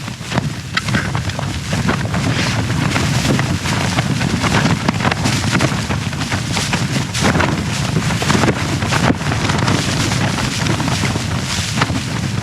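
Strong wind gusting against a small backpacking tent, the fabric flapping and snapping many times over a constant rumble of wind on the microphone.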